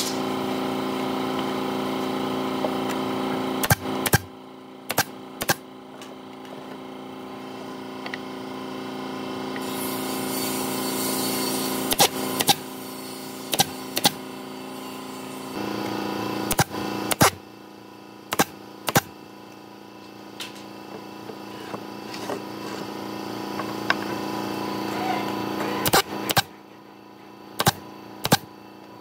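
Pneumatic nail gun firing nails into hardwood box sides: about sixteen sharp shots, mostly in pairs half a second apart. A steady hum runs underneath.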